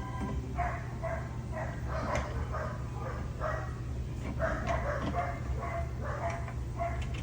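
A dog barking rapidly, about two to three short barks a second, over a steady low hum.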